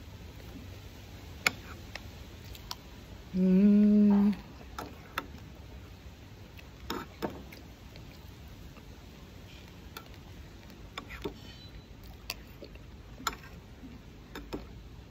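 Close-miked eating sounds: chewing beef and açaí, with scattered small mouth clicks and smacks. About three and a half seconds in, a loud closed-mouth hum, a steady "mmm" lasting about a second.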